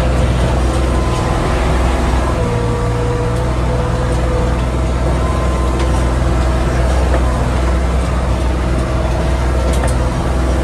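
Sherp N 1200 all-terrain vehicle's diesel engine running steadily under way, heard from inside the cab as a loud low drone, with a fainter higher whine a few seconds in.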